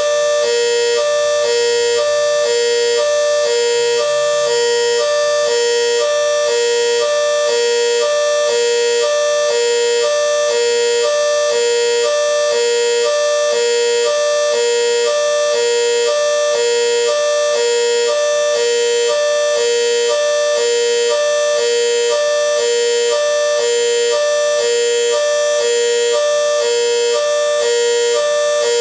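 GS CS-10V15QT signal sounding its hi-lo tone: two pitched tones alternating in quick, even succession, steady and unchanging.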